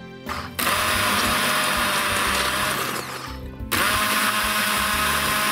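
Hand-held immersion blender running in a stainless steel pot, puréeing tomato and onion sauce into a smooth salsa. It runs in two bursts of about two and a half seconds each, with a brief pause about three seconds in.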